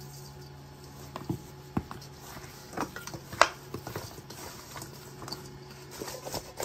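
Oiled chicken wings tossed by a gloved hand in a stainless steel mixing bowl: irregular wet knocks and taps against the metal, one louder knock about three and a half seconds in, over a faint low hum.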